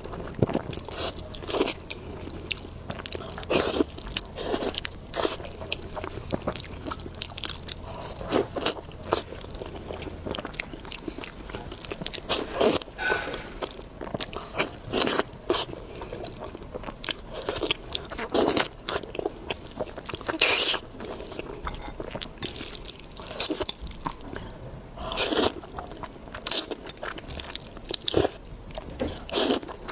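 Close-miked eating: a person biting into and chewing food, with irregular crunchy bites every second or two.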